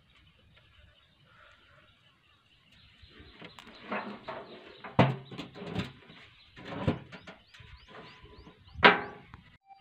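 A rusty metal drum knocking and scraping as it is set down and handled in a wooden boat. The sounds start about three seconds in as a string of irregular knocks, and the loudest comes near the end.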